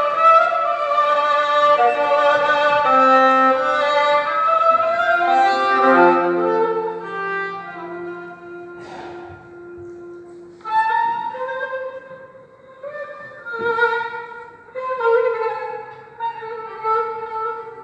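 Kamanche, the Persian spiked fiddle, bowed solo in an improvisation in Dastgah Mahur. It opens with a busy run of quick notes, drops to softer held low notes, and from about eleven seconds in plays louder short phrases with brief pauses between them.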